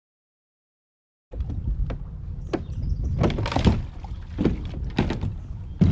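Silence, then about a second in a steady low rumble begins, with a string of sharp knocks and thumps, the loudest near the end.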